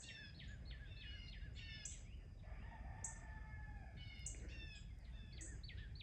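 Faint bird chirping: rapid series of short, high, downward-sliding chirps, with a distant rooster crowing once in the middle.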